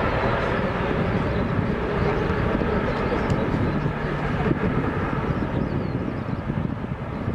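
Boeing 777-300ER's twin GE90-115B turbofans at take-off thrust as the airliner lifts off and climbs away: a steady, dense jet rumble that gradually fades.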